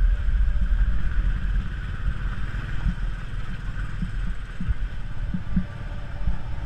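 Motorcycle engine running at low speed on a rough dirt track, a steady low rumble with a few short knocks partway through.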